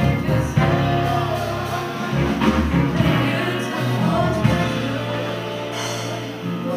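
Live jazz-soul band playing: a woman sings over horns, piano, bass and drums.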